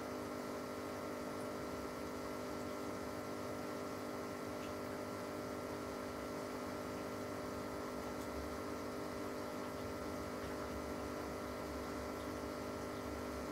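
Steady hum of running aquarium equipment, several held tones over a faint even hiss.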